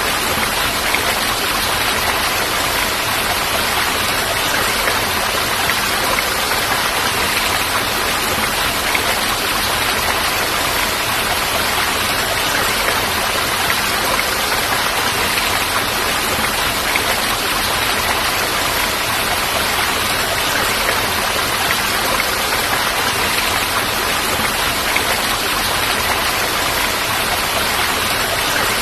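Falling water rushing in a steady, even hiss, unchanging throughout.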